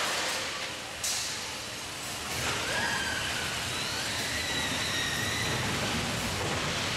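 Steady din of an indoor amusement park with the coaster car stopped, broken about a second in by a short sharp hiss of air, with faint high squeals wavering over the noise later on.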